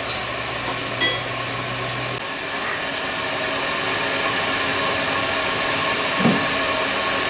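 Hafco HM-54GV milling machine running, a steady mechanical whir with constant tones from the motor and spindle drive. A lower hum underneath stops about two seconds in.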